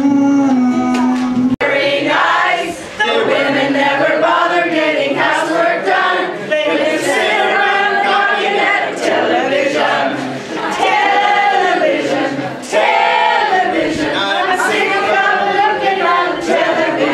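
A mixed group of men, women and teenagers singing a song together in unison, without instruments. A sudden cut about a second and a half in ends a moment of a different song.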